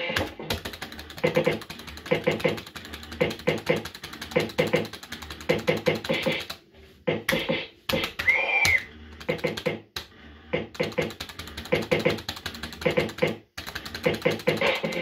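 JPM Red Hot 6 fruit machine played spin after spin: its reels spinning and stopping in a rapid clicking clatter, over and over, with a few short gaps. A short electronic tone from the machine sounds about eight seconds in.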